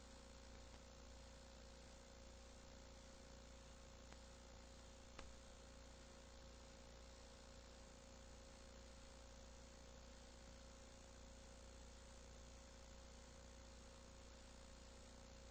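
Near silence: the steady electrical hum and hiss of an old videotape transfer with no live sound, with a faint steady tone and one faint click about five seconds in.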